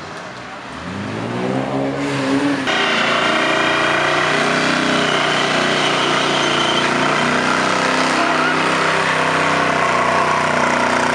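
Van engine doing a burnout: it revs up over about two seconds, then from about three seconds in is held at loud, steady high revs while the rear tyres spin on the asphalt.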